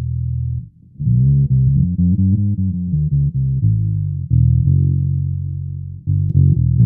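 Short-scale fretless electric bass played through a small VOX practice amp with no effects. A held note ends with a short break, and a run of plucked notes starts about a second in. Another long note is held, then quick notes come near the end.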